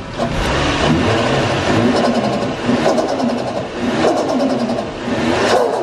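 Toyota Mark II JZX100's 1JZ straight-six running with the bonnet open, warm after about twenty minutes of running to bleed air out of a freshly filled cooling system. The engine note swells and dips a little.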